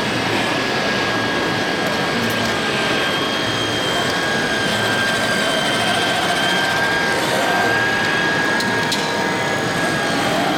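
Busy hall crowd chatter with a steady high-pitched whine running through it.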